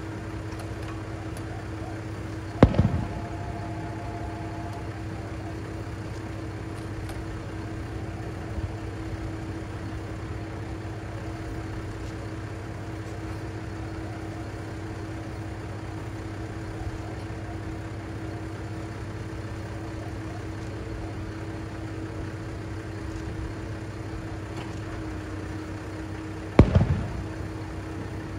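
Diesel railcar engine idling steadily as the Kiha 3710 stands at the platform, with two firework bursts booming, one about three seconds in and another near the end, each trailing off in a short echo.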